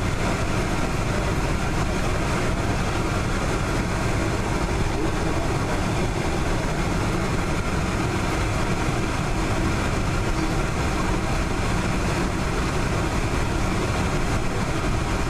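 Steady cabin noise of a Boeing 747-400 taxiing: the jet engines at low taxi thrust with a deep even rumble, heard from inside the cabin.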